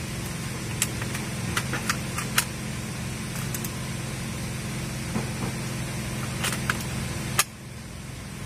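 A PCP air rifle fires with a single sharp crack about seven seconds in, after a scattering of short clicks from handling the rifle. A steady, low engine-like hum runs underneath and cuts off at the shot.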